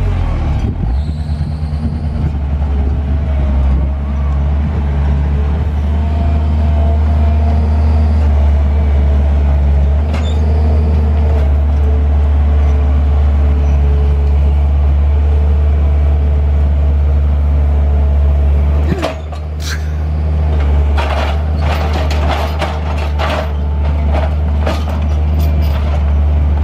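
Gehl CTL 60 compact track loader's diesel engine running steadily under load while it pushes and carries a tree root ball. The engine dips briefly about two-thirds of the way through, then a run of clanks and knocks follows near the end.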